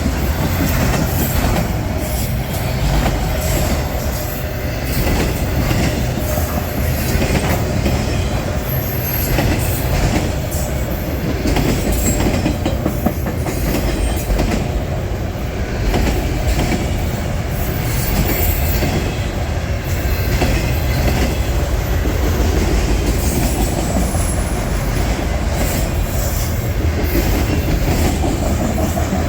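Railroad cars rolling steadily past on the track: a loud, continuous rumble of steel wheels on rail with rapid clicks over the rail joints and a few brief high wheel squeals.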